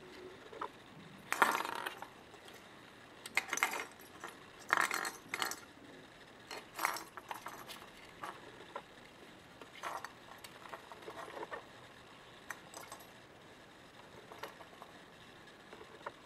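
Bengal kitten pawing into the holes of a wooden peek-a-boo play box, a toy inside clattering and clinking in irregular bursts; the loudest come about one and a half and five seconds in.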